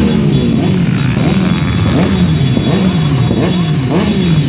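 Many motorcycle engines running and revving as a column of bikes rides slowly past, their pitches rising and falling over one another.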